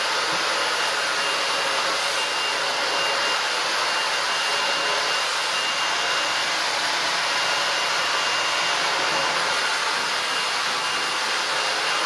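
Shark IZ320EUT cordless vacuum running in handheld mode with its furniture brush, sucking up a mix of quartz sand, cat litter and breadcrumbs from a hard floor. It makes a steady rush of air with a thin high whine.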